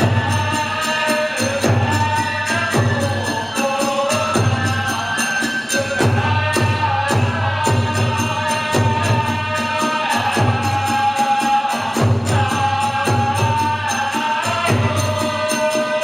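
Kagura accompaniment: a drum beating a fast, steady rhythm with small hand cymbals clashing on the beats, under a sustained flute melody.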